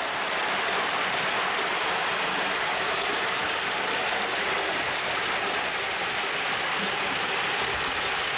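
Many glass marbles clattering steadily as they roll and knock down the wooden zigzag slides and along the red plastic tube rails of a large marble run machine.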